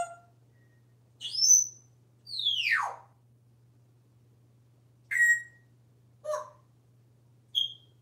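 African grey parrot whistling and chirping: a short call, a quick rising whistle, then a long whistle that falls steeply in pitch, followed by three short chirps.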